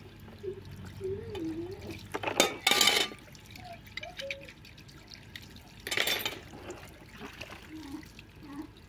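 Water running from an outdoor tap and splashing as a metal pot is rinsed under it by hand, with louder splashes about two and a half seconds in and again around six seconds.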